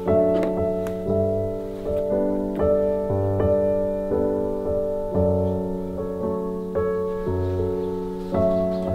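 Gentle solo piano background music, chords struck at a slow, even pace and each left to ring and fade.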